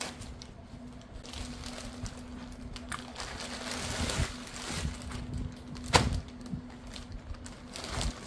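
Thin plastic mailer bag rustling and crinkling as it is cut open and a clear plastic bag is pulled out, loudest about three to five seconds in, with one sharp knock about six seconds in. A steady low hum runs underneath.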